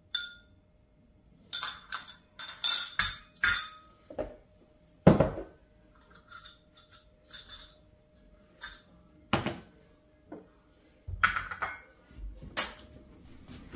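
Dishes, glassware and cutlery being handled and set down: a series of separate clinks and knocks, some ringing briefly, with the loudest a dull knock about five seconds in.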